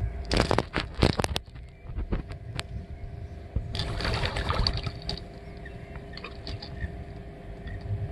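Shallow lake water sloshing and splashing around a person wading knee-deep, with a cluster of sharper splashes in the first second or so and a longer rush of splashing about four seconds in. A faint steady hum runs underneath.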